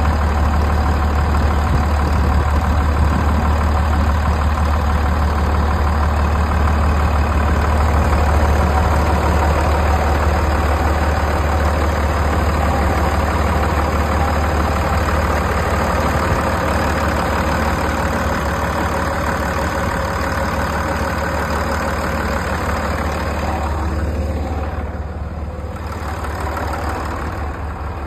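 Engine of a 1998 Douglas TBL280 aircraft tow tractor idling steadily with a low, even hum. It grows a little softer near the end.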